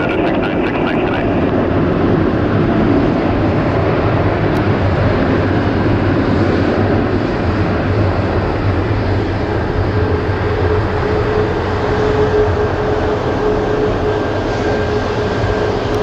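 Airbus A340-600 jetliner's four Rolls-Royce Trent 500 engines running at taxi power as it rolls slowly past: a loud, steady jet rumble. A steady whining tone joins in about ten seconds in.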